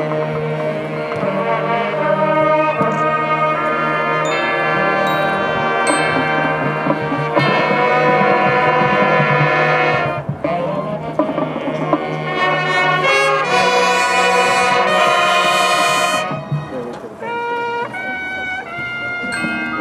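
High school marching band playing a loud passage of held brass chords. It breaks off briefly about halfway, then swells again. Near the end the sound drops to a softer passage of separate, stepping notes.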